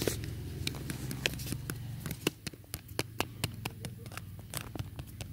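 Irregular light taps and clicks, several a second, over a low rumble of handling noise, as toys are moved about close to the paving tiles.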